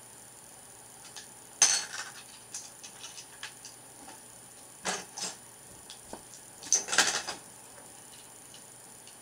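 Plastic Lego bricks clicking and clattering as they are handled and pressed together. Three louder bursts of clicks come about one and a half seconds in, about five seconds in and about seven seconds in, with lighter ticks between.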